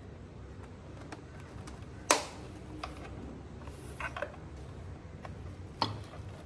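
A few sharp clicks and knocks, the loudest about two seconds in, over a low steady hum.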